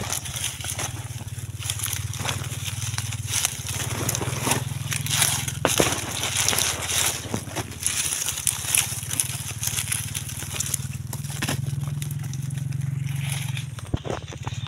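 Dry leaf litter and twigs crunching and crackling in irregular bursts, over a steady low hum.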